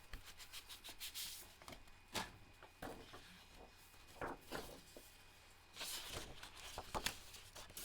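Paper and cardstock being handled on a desk: sheets slid, shuffled and set down, making scattered soft rustles and light taps.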